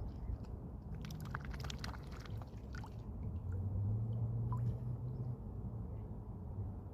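A swan smacking its bill, making wet, squishy clicks: a quick cluster about a second in, then a few scattered ones. A low steady hum runs beneath.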